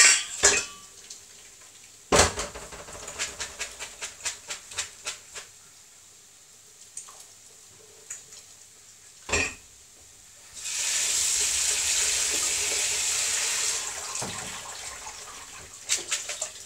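Cooked pasta being strained at a kitchen sink: a pan knocks down about two seconds in, followed by a run of light metal clatters, with another knock later. About eleven seconds in, water runs steadily into the sink for about three seconds, then tapers off.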